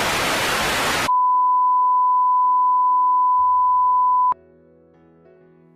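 TV static hiss for about a second, then the steady high test-pattern beep that goes with colour bars, held for about three seconds and cut off abruptly. Faint background music underneath.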